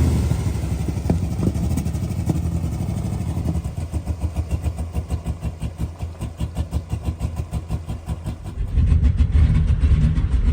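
Ram 1500's Hemi V8 running low and uneven in deep mud water, settling about a third of the way in into a regular pulsing beat of about four a second, then picking up louder near the end. The engine has sucked in some water.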